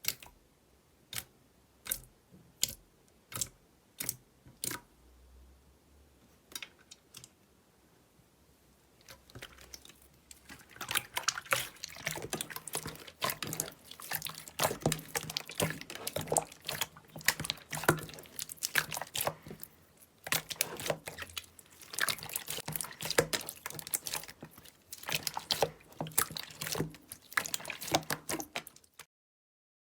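Slime being handled: about nine separate sticky clicks, roughly two a second, in the first few seconds. After a pause comes a long run of dense, fast crackling and popping, which cuts off abruptly near the end.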